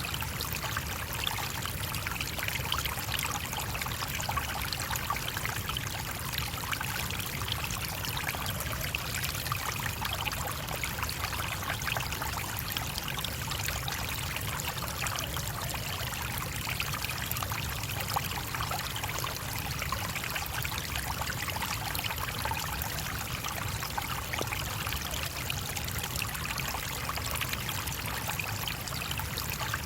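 A shallow stream flowing and babbling steadily over stones, with no change in its level.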